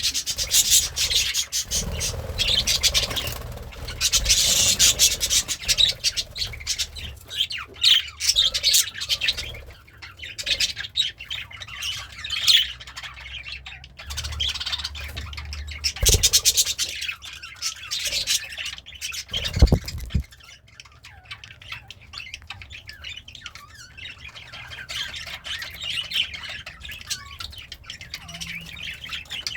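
Budgerigar chattering: a continuous stream of rapid chirps, squawks and warbles, louder in bursts and quieter after about twenty seconds, with a brief low thump around then.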